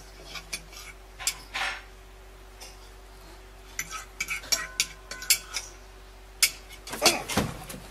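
A red squirrel on wooden deck boards, making light, irregular clicks and taps in scattered clusters, with a faint steady hum underneath.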